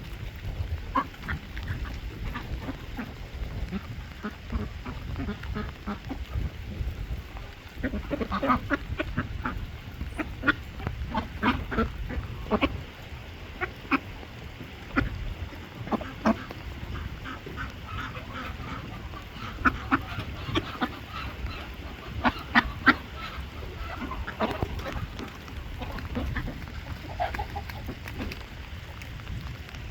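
A flock of domestic ducks quacking in many short, repeated calls, busiest from about eight seconds in.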